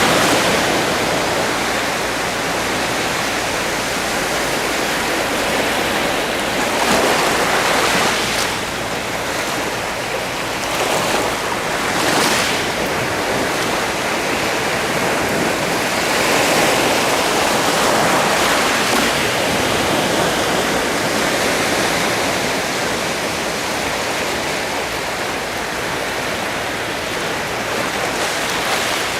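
Sea surf: a steady rush of waves washing onto the shore, swelling several times as individual waves break.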